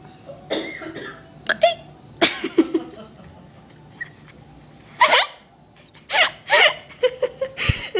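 A person hiccuping over and over. Each hiccup is a sudden, loud, voiced yelp with a short glide in pitch, about eight in all, with a pause of two seconds or so midway.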